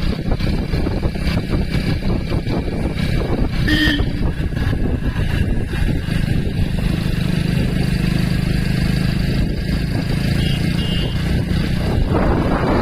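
Motorcycle engine running steadily, heard from the rider's seat while under way, with wind rushing on the microphone. A brief tone sounds about four seconds in, and the wind noise swells near the end.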